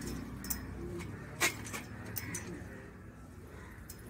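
Surveying tripod's leg clamps being tightened by hand: a few light clicks and knocks, the sharpest about a second and a half in.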